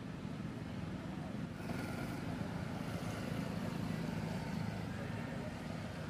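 Steady low motor vehicle engine rumble, swelling a little about two seconds in.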